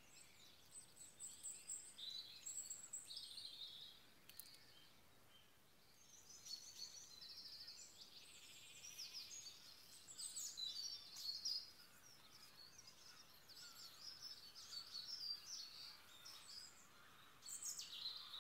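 Faint dawn chorus: several songbirds singing and chirping at once, with overlapping trills and warbles over a quiet outdoor hush.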